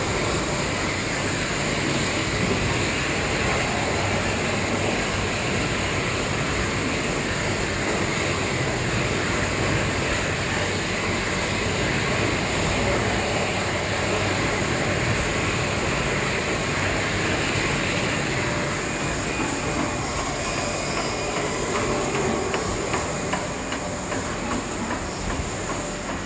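Water-bottling line running: the rotary filling and capping machine and the bottle conveyor make a steady, dense mechanical clatter. A higher hiss in it eases off about two-thirds of the way through.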